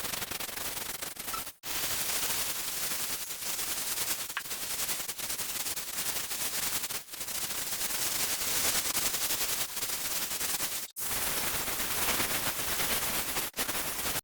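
Scrubbing on kitchen floor tiles: a dense, rapid scratching of bristles or a scouring pad on the tile surface. It breaks off four times for an instant.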